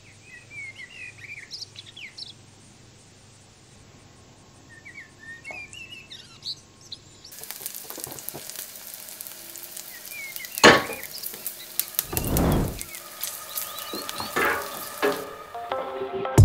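Birds chirping in the background, then from about seven seconds in, diced guanciale sizzling as it fries in a pan, with a few louder knocks over the sizzle.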